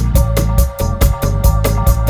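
Dub-style electronic instrumental music: deep bass, quick regular high percussion strikes about five a second, and held keyboard notes.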